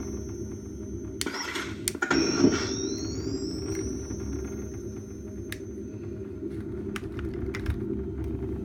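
Ghostbusters proton pack prop's electronic sound kit: a steady low hum, with a whine that rises and then levels off about two seconds in. A short burst of hiss comes about a second in, and a few sharp clicks follow later.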